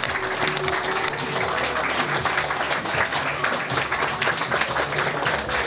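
Audience applauding, many hands clapping continuously, with music playing underneath.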